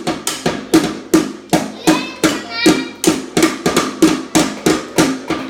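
A drum struck rapidly and repeatedly, about four to five hits a second, each with a short ringing tone.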